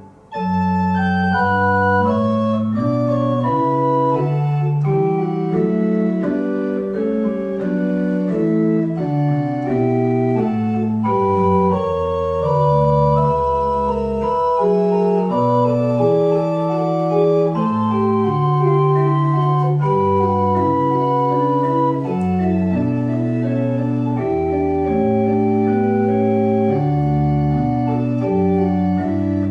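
Church organ playing a slow piece of sustained chords over a moving bass line, resuming after a brief break right at the start.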